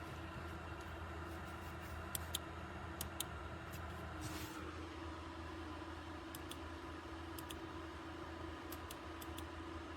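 Gaming mouse buttons clicking about a dozen times, mostly in quick pairs, over a steady low hum. A brief rustle about four seconds in.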